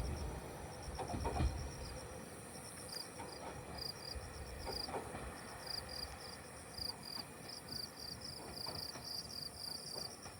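Insects chirping in quick, high pulses, a steady evening chorus of crickets. In the first two seconds the low rumble of the departing Kishu Railway train fades away.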